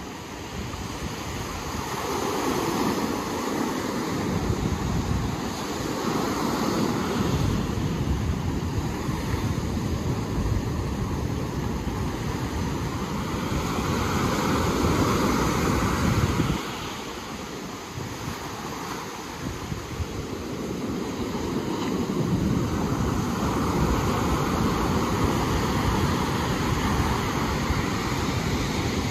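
Ocean surf washing in, swelling and fading every few seconds, with wind rumbling on the microphone.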